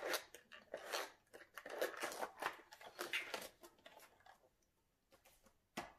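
Paper pages of a spiral-bound colouring book being flipped by hand: a quick run of soft rustles and flicks for about four seconds, then a pause and one more short rustle near the end.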